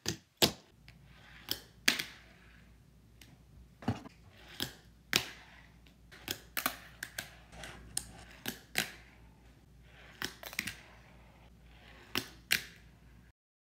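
A fingerboard (a miniature skateboard) clacking on a wooden tabletop: sharp, irregular clicks and snaps as the board is popped, flipped and landed under the fingers, over a faint low hum.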